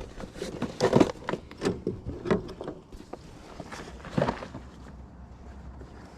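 Irregular light knocks and clatters on a fishing boat, about a dozen short ones, thinning out after about four seconds.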